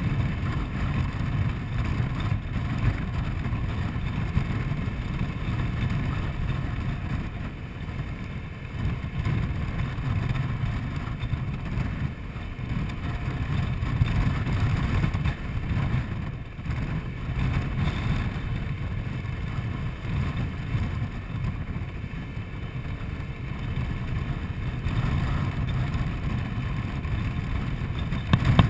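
Riding noise on a Honda Forza 125 scooter under way: a continuous, fluctuating rumble of wind on the microphone over the scooter's single-cylinder engine.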